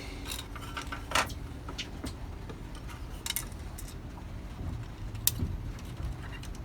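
A knife blade scraping electrical contact pins clean: a few short, sharp clicks and scrapes of metal on metal, a second or two apart, over a low steady rumble.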